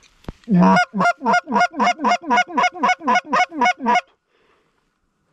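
Goose honks: one long note, then a rapid, even run of about a dozen short falling honks, about four a second, that stops abruptly about four seconds in.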